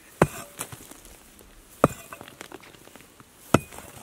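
Pickaxe striking soft rock three times, about a second and a half apart, each blow followed by a short clatter of loosened chips.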